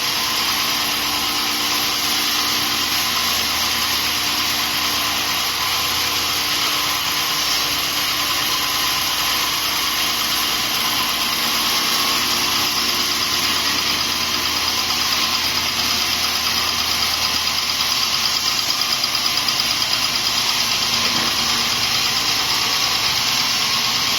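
Horizontal band sawmill running with a steady, loud mechanical hum and hiss.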